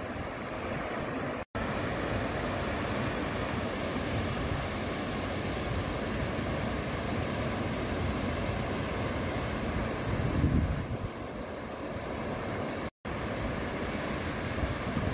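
Steady rush of flowing water with wind buffeting the microphone, swelling into a low rumble about two-thirds of the way through; the sound drops out completely for an instant twice.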